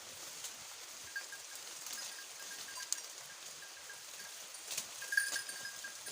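Goats feeding on cut tree leaves: scattered light clicks and rustles over a steady hiss, with a faint, thin high chirping that is strongest about five seconds in.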